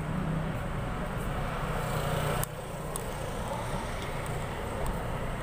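Steady outdoor traffic noise from vehicles on a nearby road. A low hum under it cuts off suddenly about halfway through.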